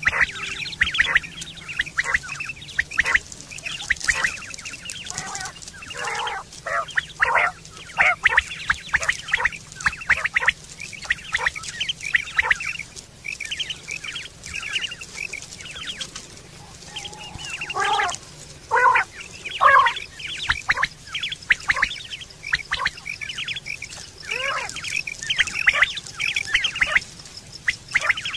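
Common quail calling: a long run of short, sharp notes in quick clusters, a few of them sweeping down in pitch.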